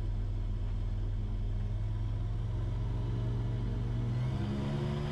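Rotax 912 engine of a Super Petrel 100 amphibian running at high power, heard from the cockpit as the hull runs fast through the water with spray rushing past. Its pitch climbs from about four seconds in as the power comes up.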